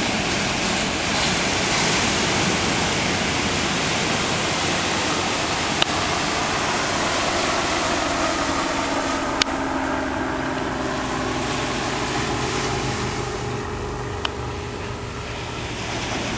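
Ocean surf breaking and washing up the beach, a steady rush of waves.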